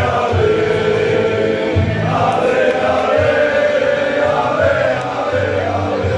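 Many men singing a Hajduk Split supporters' song together in chorus, over a pulsing bass beat.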